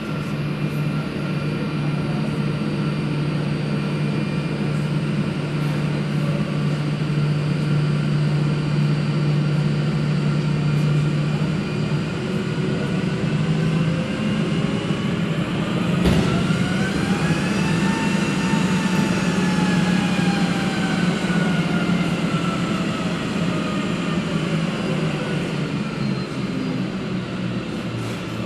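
Airbus A319 jet engines running at low power, a steady hum under a high whine. Near the middle the whine rises in pitch, then slowly falls again, as the engines spool up briefly and wind back down.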